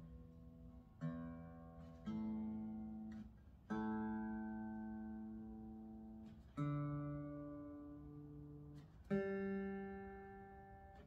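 Unplugged Fender Acoustasonic Player Telecaster being tuned: single strings plucked one at a time, about five plucks, each note ringing and fading while the tuning pegs are turned.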